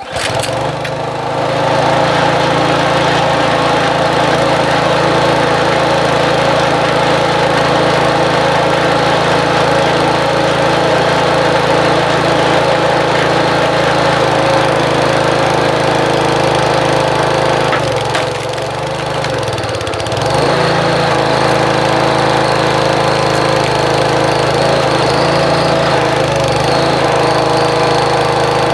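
Craftsman 27-ton log splitter's small gas engine pull-started, catching at once and running steadily. About two-thirds of the way through it bogs down and drops in pitch for about two seconds as the hydraulic ram drives the wedge through a bay log, then picks back up. A shorter dip comes near the end.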